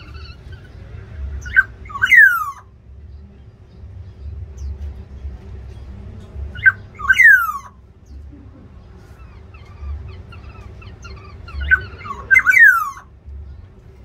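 Black-naped oriole giving three harsh, falling calls about five seconds apart. Each call is a short sharp note followed by a downward sweep.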